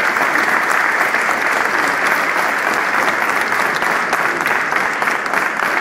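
A large crowd applauding steadily: many people clapping in a reverberant hall.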